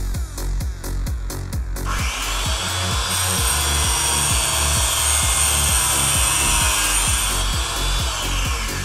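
Electric chain-sharpening grinder (INTERTOOL DT-0850) with its abrasive disc grinding a saw-chain cutter tooth: a steady high whine and grinding hiss that starts about two seconds in and winds down near the end. Electronic music with a steady beat plays underneath.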